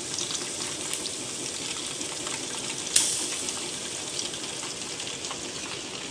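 Chicken wings frying in hot oil in a kadhai: a steady sizzle with scattered small crackles, and one sharp click about three seconds in.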